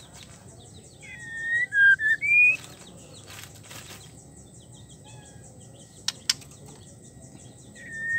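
White-rumped shama giving a short phrase of three or four loud, gliding whistled notes about a second in. The phrase comes again near the end, and two sharp clicks fall about six seconds in.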